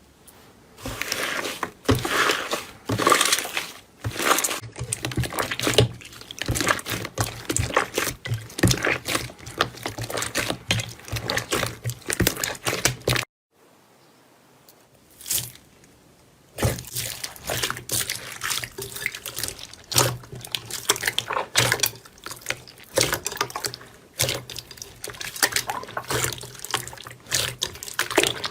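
Slime being handled: wet, sticky squelching with dense crackling and popping clicks. It stops suddenly about thirteen seconds in, and after a few quieter seconds with one short sound, the squelching and crackling start again.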